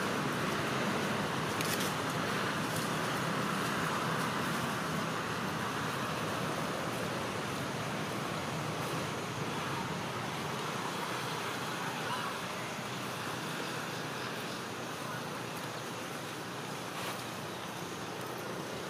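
Steady outdoor background noise, an even rushing hiss that fades slightly, with a couple of faint clicks.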